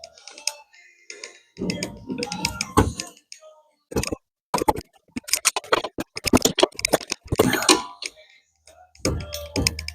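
Hand tools working on a car's rear suspension: a quick, irregular run of sharp metallic clicks and knocks that starts about four seconds in and lasts a few seconds, with scraping before and after.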